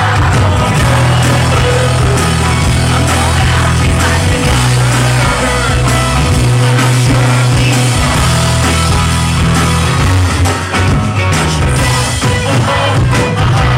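Live rock band playing loud amplified music with a heavy bass line, heard as recorded from the audience.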